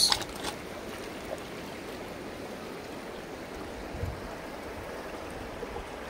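Shallow river water running and rippling over rounded cobbles at the edge of the Hoh River: a steady rushing. There is a soft low thud about four seconds in.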